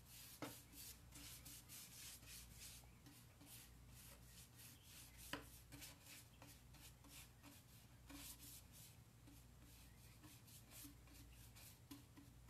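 Faint, quick repeated strokes of a wax brush scrubbing dark furniture wax into a painted wooden cabinet door, with a couple of light taps about half a second and five seconds in.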